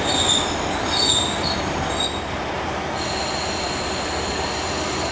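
A train moving through the station, with several high-pitched metallic squeals from its wheels over the first two and a half seconds, then a steady rolling rumble.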